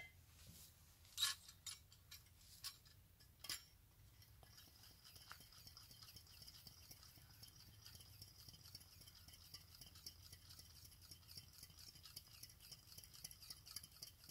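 A few faint clicks and knocks of camping gear being handled, then, from about four and a half seconds in, a faint steady hiss with fine rapid ticking as a small camp stove is lit and burns to heat water for a brew.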